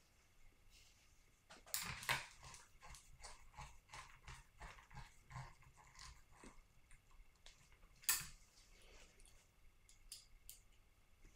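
A run of small clicks and taps from handling screws and a thread-lock bottle on the workbench, with two louder clacks about two seconds in and about eight seconds in.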